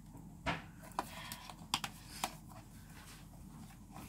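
A metal spoon clicking and scraping against the inside of a nearly empty plastic tub: a handful of sharp, irregular clicks in the first half, quieter after.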